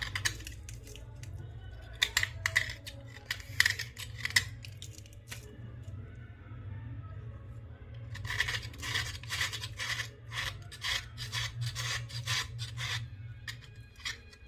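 Slate pencils crunching and cracking: rapid sharp, gritty crackles in two bouts, the first about two seconds in and a longer one from about eight seconds in.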